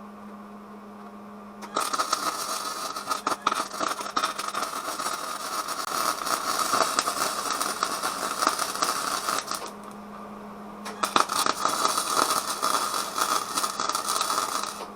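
Electric arc welding: two welds laid on a vise repair, a loud crackling arc with sharp snaps. The first runs about eight seconds and the second about four, after a short break.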